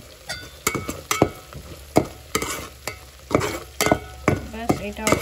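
A metal spatula stirring thick ground masala paste as it fries in a pot, with irregular scrapes and knocks against the pot starting just under a second in, over a light sizzle. The spices are being fried into the paste.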